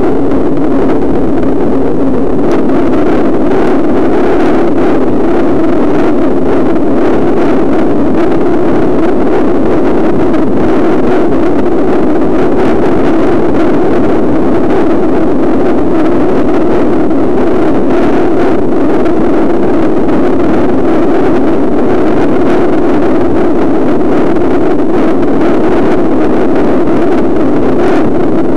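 Steady, loud travel noise on the camera's microphone: wind and road noise with no engine note standing out and no change in level.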